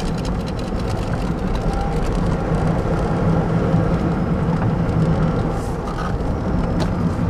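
Steady wind and road noise in the open cockpit of a Tesla Roadster electric sports car driving at speed, with no engine note.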